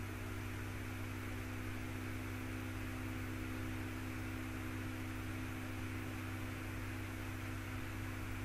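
Steady electrical mains hum with several low tones, under a constant background hiss.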